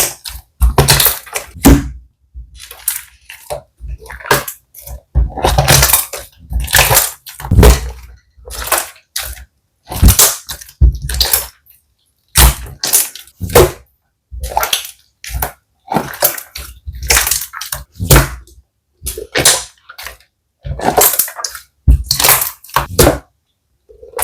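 Slime being squeezed and pressed by hand: a steady run of short squishes, a little more than one a second, each followed by a brief silence.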